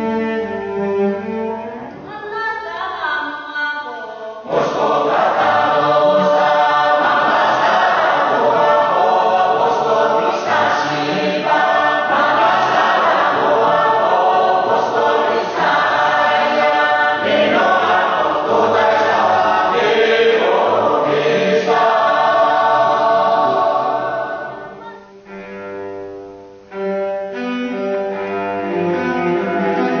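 Solo cello bowing. About four seconds in, a Bunun traditional chorus comes in singing together in many voices. The singing breaks off near the end and the cello plays alone again.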